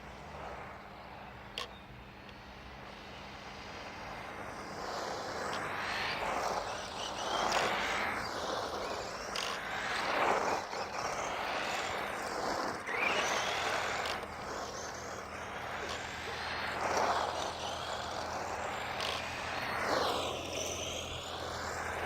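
Tamiya radio-controlled buggy driving back and forth, its motor and tyres swelling and fading with each pass. A sharp click is heard about a second and a half in.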